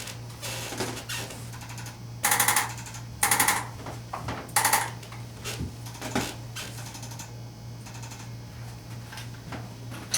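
Arthrostim hand-held chiropractic adjusting instrument tapping in short bursts of very rapid strokes, the three loudest between about two and five seconds in, with fainter bursts around them.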